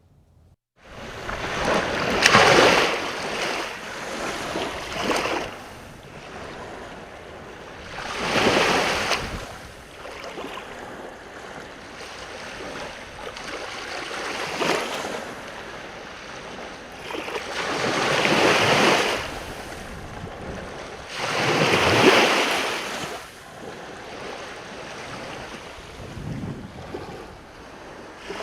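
Lake waves breaking and washing onto the shore: a steady hiss with a louder surge every few seconds as each wave comes in.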